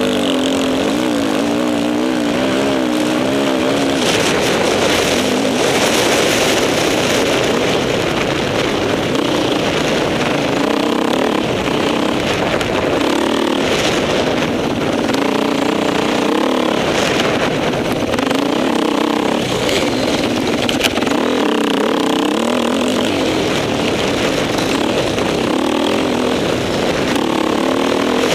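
Off-road motorcycle engine heard from on board, its pitch rising and falling again and again as the rider opens and closes the throttle along the trail, under a steady rushing noise.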